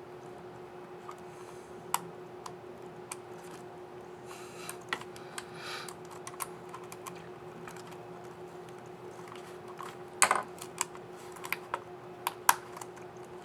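Scattered plastic clicks from a Dell Latitude 3590 laptop keyboard as a key cap is handled, fitted and pressed, with a quick cluster of louder clicks about ten seconds in and a sharp one near the end, over a steady low hum.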